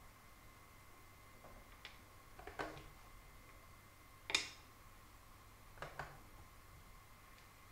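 Wooden shogi pieces clicking down on a wooden board and the button of a digital game clock being pressed: a handful of short, sharp clicks, the loudest about four seconds in as a piece is set down, then a quick double click about six seconds in at the clock.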